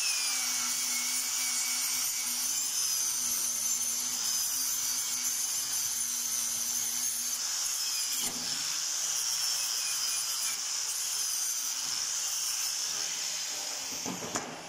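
Angle grinder running with a knotted wire wheel, brushing slag off a fresh flux-core weld bead on steel: a steady high whine that wavers a little as the wheel is pressed on the metal. It stops near the end.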